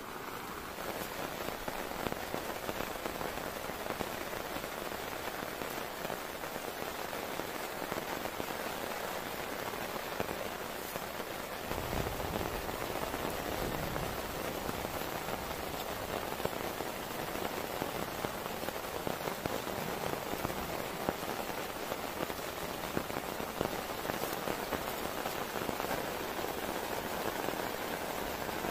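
Heavy rain falling steadily, drops splashing on a plastic bucket lid; from about twelve seconds in the rain falls on a tarp overhead, with a fuller, deeper sound.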